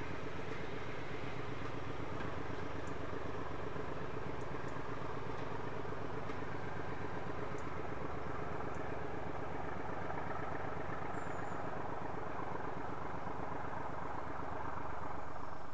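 Diesel locomotive engine running steadily at a constant speed, a deep, even mechanical drone.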